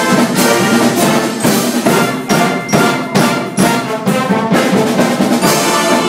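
A band playing loud brass music, horns over drums that keep a steady beat.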